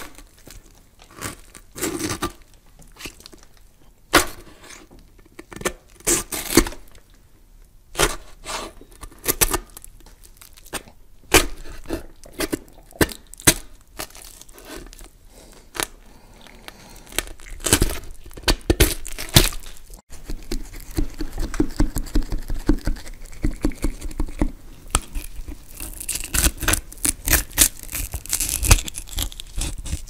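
Horror sound effect of irregular crunching, tearing and cracking noises. About twenty seconds in, it breaks off briefly and a denser run of crackling follows.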